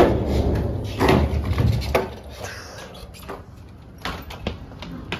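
Skateboard slamming down on the floor of a small steel elevator: one loud bang, then the wheels rumbling and rattling, with two more knocks about a second apart.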